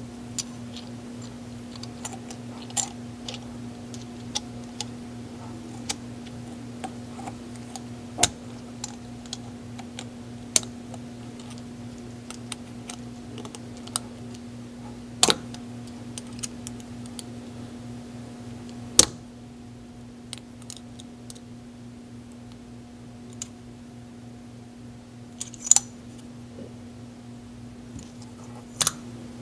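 Small metal clicks and clinks as aluminum suppressor K-baffles are handled and fitted together one after another, irregularly spaced, with a few louder clicks. A steady low hum runs underneath.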